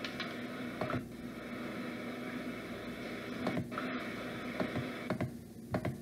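Recorded angry hamster sounds played back through a small speaker: a steady hiss with a low hum, broken by a few short sharp sounds, several close together near the end.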